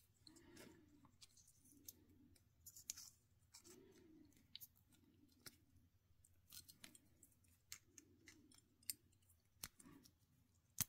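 Faint clicks and snips of small diagonal cutters gripping and peeling back the thin aluminium can of an electrolytic capacitor, metal crinkling under the jaws. Scattered sharp ticks, one louder click near the end.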